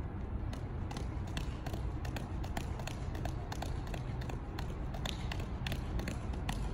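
130-gram juggling balls smacking into the hands in a quick, fairly even run of catches, about three to four a second, as five balls are juggled in a shower pattern, over a steady low background rumble.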